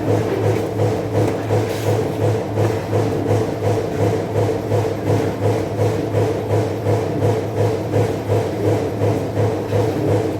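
Steady mechanical hum of a running shop machine, pulsing evenly about three times a second.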